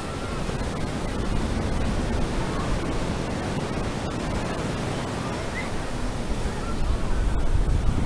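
Ocean surf breaking on a sandy beach, a steady rush of waves, with wind buffeting the microphone that grows stronger near the end.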